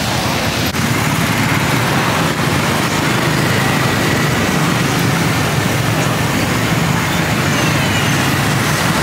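Steady road traffic noise: motor vehicles running along the road.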